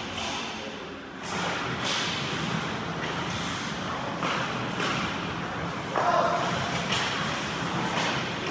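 Ice hockey rink sound near the net: skate blades scraping the ice and short knocks about once a second, the loudest about six seconds in, over a background of distant voices.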